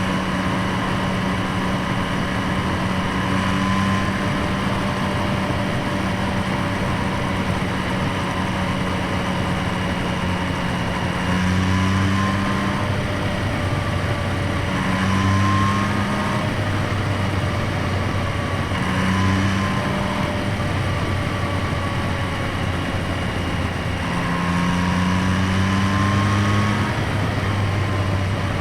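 Yamaha MT-09's three-cylinder engine running steadily, heard close up at the airbox intake and exhaust, its note rising slightly and settling back several times.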